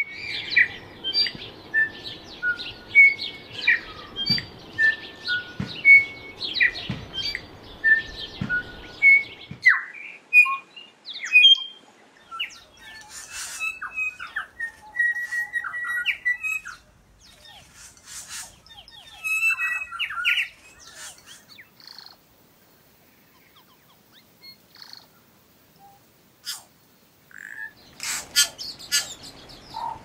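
New Zealand bellbird (korimako) song: clear, high, ringing bell-like notes in short repeated phrases, from several recordings joined one after another. The first, about ten seconds long, repeats the same few-note phrase over a low background hum; the later ones are more varied and sparser.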